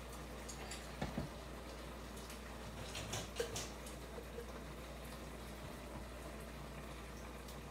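Alfredo sauce and chicken thighs bubbling faintly in an electric multicooker on its sauté setting, under a low steady hum, with a few light clicks.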